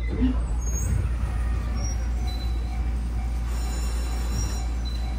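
Steady low hum inside a Fukui Railway F1000 tram car standing at a platform, with faint steady tones from its onboard electrical equipment.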